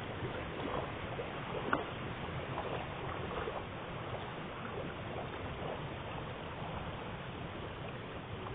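Water running steadily through a fish farm's concrete pond channels, with one sharp click nearly two seconds in.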